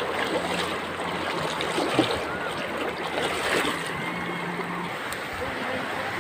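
Shallow river running over rocks: a steady rushing water noise.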